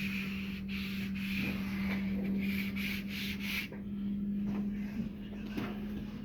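Wallpaper being rubbed down over a seam with a smoothing tool, in repeated rubbing strokes that stop about three and a half seconds in. A steady low hum runs underneath.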